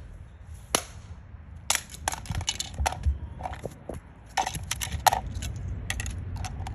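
Irregular clicks, taps and knocks of hard plastic being handled: the remote-control toy and its controller, whose joystick is stuck.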